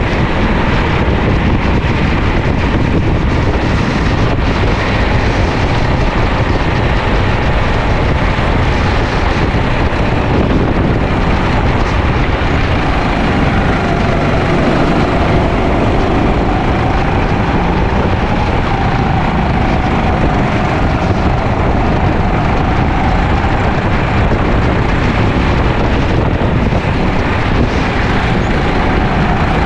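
Sodi LR5 rental kart engine running at racing speed, heard onboard, its pitch rising and falling as the revs change. Heavy wind buffeting on the microphone.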